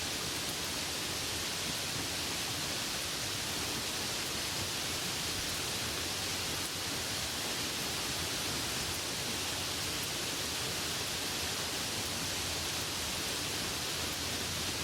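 Steady rain falling, an even hiss that is strongest in the upper range, with no single drops or pauses standing out.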